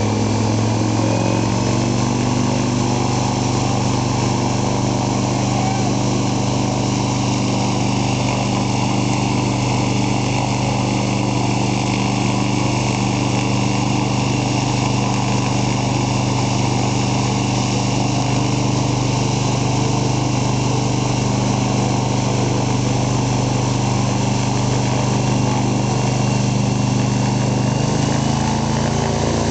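Ritter wind machine running steadily for a simulated storm: a loud, constant motor drone with rushing fan wind, its note shifting near the end.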